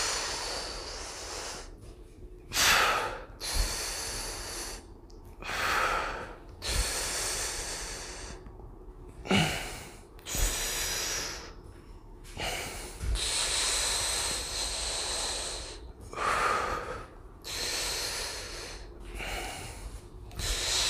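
A man's slow, deliberate breaths in and out, heard close on a chest-clipped lavalier mic, each a second or two long with short pauses between them: breathing to brace and pressurize the core during exercise. A few soft low thumps come in between.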